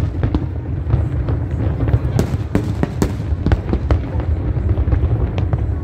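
Aerial fireworks display: many sharp bangs and crackles of bursting shells in quick succession over a continuous low rumble.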